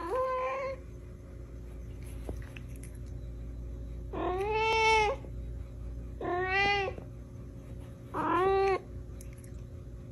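Domestic cat meowing four times, each call a second or less, the second one the longest and loudest.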